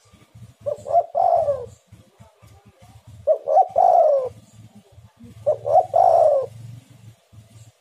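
Spotted dove (tekukur) cooing in three phrases about two and a half seconds apart. Each phrase is a few quick short coos ending in a longer, falling coo.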